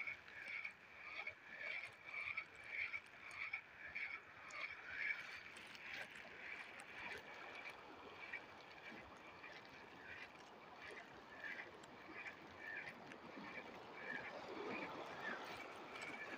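Shimano Sienna 2000 spinning reel cranked steadily as a lure is retrieved, giving a faint chirping squeak with each turn of the handle, about twice a second, fading somewhat in the second half.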